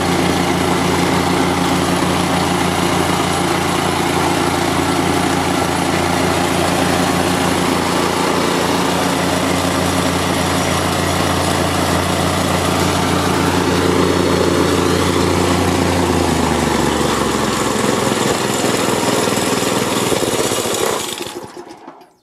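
Plate compactor's small single-cylinder four-stroke petrol engine, a Honda GX160 copy, running steadily with its oil-level sensor connected and not cutting out, a sign the sensor is working. About sixteen seconds in it slows, and it dies away near the end.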